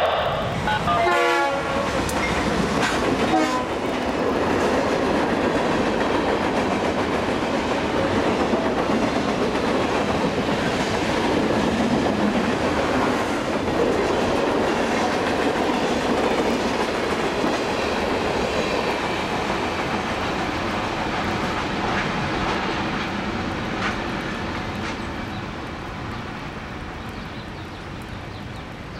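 Freight train of covered hoppers and boxcars rolling past, with wheels clattering on the rails and a train horn sounding briefly at the start. The rolling noise fades steadily over the last several seconds as the end of the train goes by.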